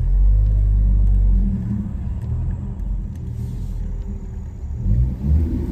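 Car engine and road rumble heard from inside the cabin as the car pulls forward, heaviest in the first second and a half, then settling to a lower steady rumble that swells again near the end.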